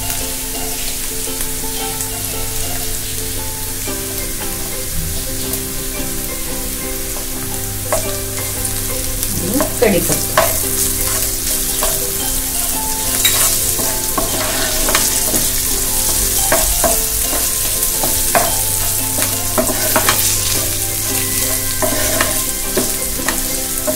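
Chopped onion, green chillies and garlic sizzling in oil in a pan, the onion tempering for poha, while a wooden spatula stirs and scrapes them, with the scraping strokes coming more often from about eight seconds in.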